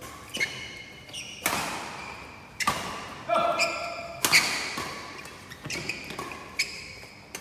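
Badminton rackets striking a shuttlecock during a doubles rally: sharp hits about once a second, each ringing on in a large hall, the loudest about four seconds in.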